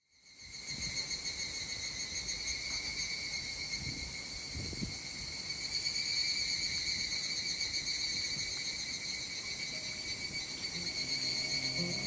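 A chorus of higurashi (evening cicadas) calling in a steady, high, rapidly pulsing trill. Soft music fades in near the end.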